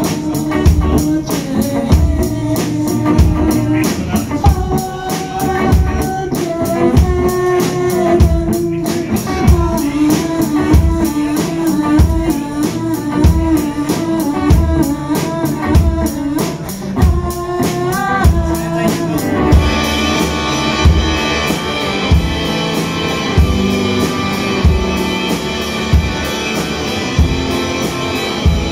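Live rock band: a Telecaster-style electric guitar and a Tama drum kit playing a steady beat, with a sung melody over the first two-thirds. About twenty seconds in the singing stops and the playing turns brighter and denser.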